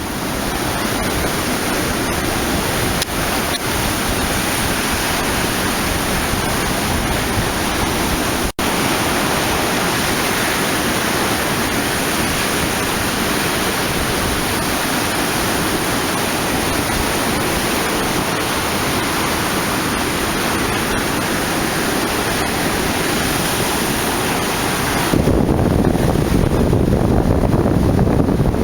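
Sea waves breaking on the shore, a steady, loud rush of surf. It breaks off for a moment about eight and a half seconds in, and near the end turns to a deeper rumble of wind buffeting the microphone.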